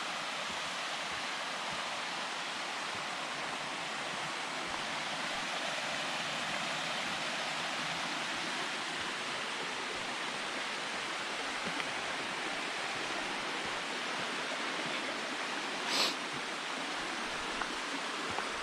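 Small mountain stream running over rocks: a steady rush of water. A brief louder hiss cuts in near the end.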